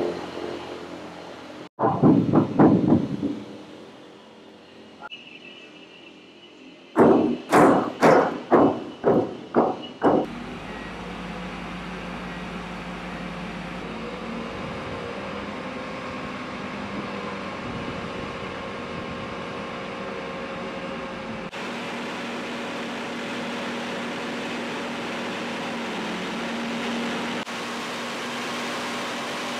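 A run of loud, sharp metal knocks, about two a second, then a mobile truck crane's engine running steadily.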